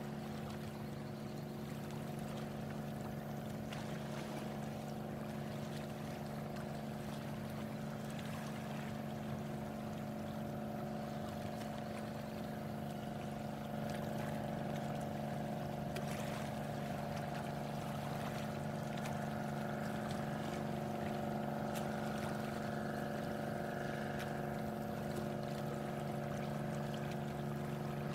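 Motorboat engine running at a steady pitch, with water noise under it; it gets a little louder about halfway through.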